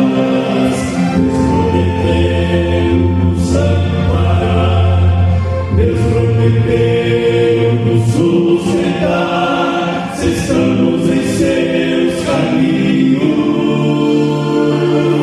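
Vocal quartet singing a hymn in Portuguese in close harmony, the voices holding long chords that change every second or two.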